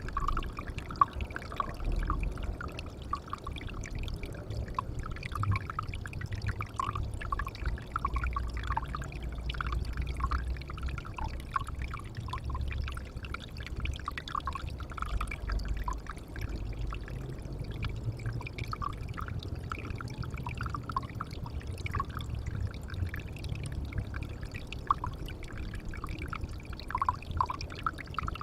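Water pouring and trickling into a pond, a steady splashing with many small drips and plops on top of a low rumble.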